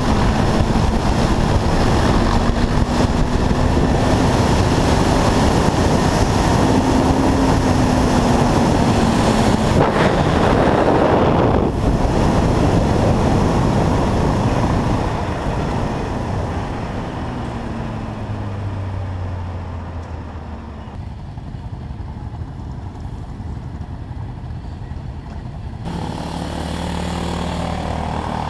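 Yamaha Raptor 700 quad riding at a steady cruising speed, its single-cylinder engine holding one steady note under heavy wind rush on the microphone. About halfway through it slows down: the wind dies away and the engine drops to low revs. Near the end another quad's engine comes up close and gets louder.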